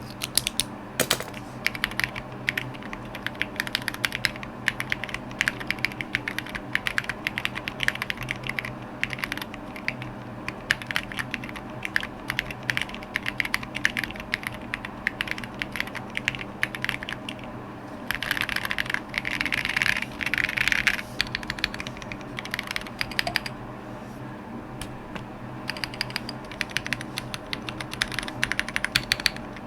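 Typing on a Prime Elise mechanical keyboard with Cherry Hyperglide Black linear switches and SA-profile keycaps: a steady stream of keystrokes, growing denser and louder for a few seconds past the middle.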